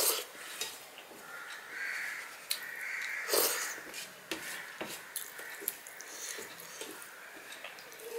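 Eating by hand: fingers squishing and mixing rice with dal on a steel plate, with many small wet clicks and mouth sounds of chewing. There are a couple of louder rough bursts, one right at the start and one about three and a half seconds in.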